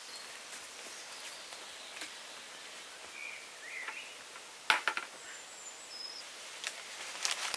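Outdoor forest ambience with a steady hiss and a couple of short bird chirps. Sharp crunching clicks sound in a cluster about two-thirds of the way in, the loudest part, and again near the end.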